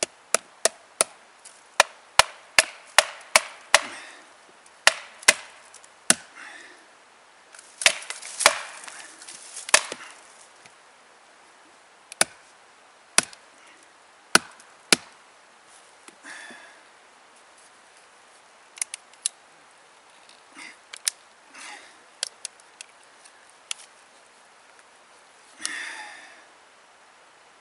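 A wooden baton knocking on the spine of a Bark River Sahara knife wedged in very dense sparkleberry wood: sharp knocks in quick runs at first, then fewer and further apart, as the stuck blade is driven and worked through the grain. Near the end the piece gives way and splits.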